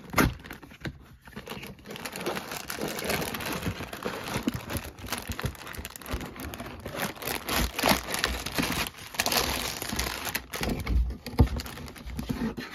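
Cardboard box of a Lego Technic set being torn open at its perforated tab and handled, with the sealed plastic bags of parts inside crinkling as they are moved. Continuous rustling and crackling with a few sharper knocks.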